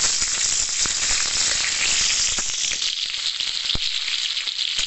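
Sliced onions sizzling and frying in hot oil with mustard seeds in a kadhai, a steady high hiss, with a few sharp clicks of the metal spatula stirring against the pan.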